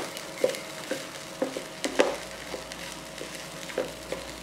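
Fried rice with bell peppers sizzling in a pan as it is stirred and tossed with wooden chopsticks and a wooden spatula, with irregular clicks and knocks of the wood against the pan, the loudest about two seconds in.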